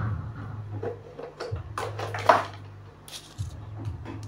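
Clicks and light clatter of hands handling tools and a small power-supply circuit board, the loudest click about two seconds in, over a low hum that stops and starts again twice.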